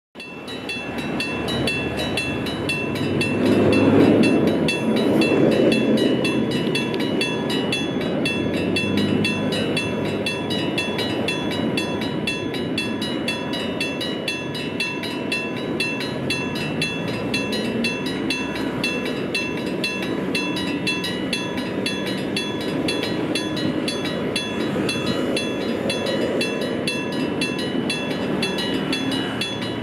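Japanese AC electric-bell level-crossing alarm ringing, its bell struck rapidly over and over in a steady clanging "karan karan". A low rumble swells about three to six seconds in.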